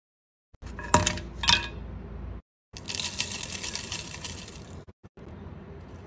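Dry ingredients going into a ceramic-coated saucepan. First come two sharp clinks as pieces of dried pomegranate peel drop into the pan, then a dense crackly patter as dried green tea leaves are poured in, and near the end a quieter, steady pour of ground coffee.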